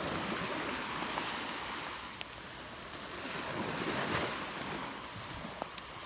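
Surf washing up over the wet, shell-strewn sand. The hiss swells twice and is loudest about four seconds in.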